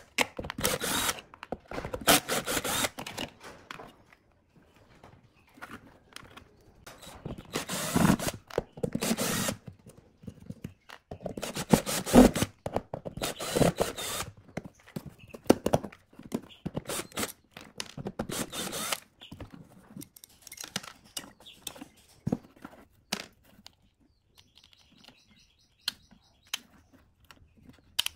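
Cordless drill-driver backing out the mounting screws of small speaker drivers, running in short bursts of a second or two with pauses between. In the last several seconds there are only quieter clicks and rattles as a loosened driver is handled.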